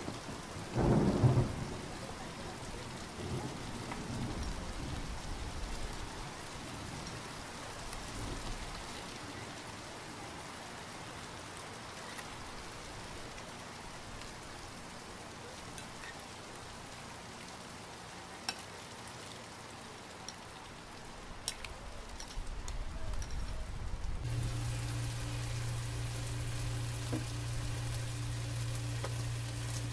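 Steady rain hiss, with a short loud clatter about a second in and a few sharp clinks of a metal spoon against a glass bowl as the sauce is stirred. About 24 seconds in, a steady low hum starts.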